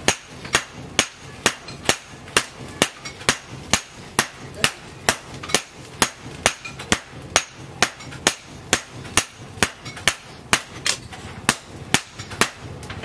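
Hammer striking red-hot leaf-spring steel on an anvil, a steady run of sharp metallic blows about two a second, as the steel is forged into a billhook blade.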